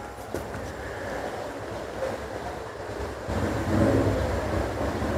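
Wind buffeting the microphone outdoors: a steady rushing with a low rumble that grows louder about three seconds in.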